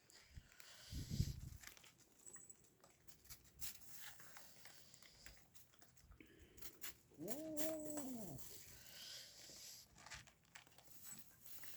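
A young street cat gives one drawn-out meow lasting about a second, near the middle. Around it are scattered faint clicks and rustles, and there is a low thump about a second in.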